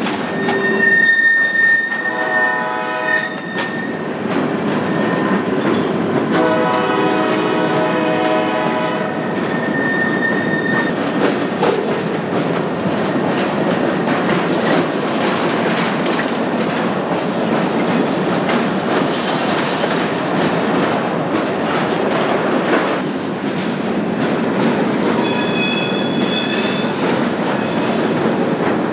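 CSX freight train rolling past, its horn sounding two blasts in the first ten seconds, the second the longer one. Steady rumble and clickety-clack of wheels on the rails runs throughout, and a high-pitched steel wheel squeal rises near the end.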